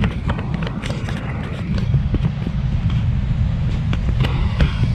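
Wind buffeting the microphone as a steady low rumble, with scattered rustles and knocks over it.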